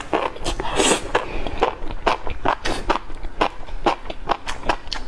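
Close-miked eating sounds: wet smacking and chewing clicks, several a second, as fatty beef rolls with enoki mushrooms in sauce are chewed, with a short puff of breath blowing on the food.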